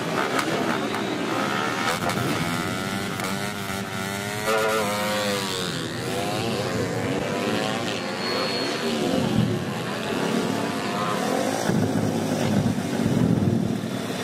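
Drag-racing motorcycle engines revving hard at the start line, the pitch rising and falling again and again; about five seconds in, one climbs steeply as the bike launches, and near the end another bike revs at the line.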